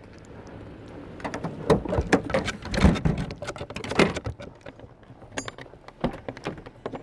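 Gear being handled at close range: a dense run of sharp clicks and rattles from about a second in until about four and a half seconds, then a few scattered ticks.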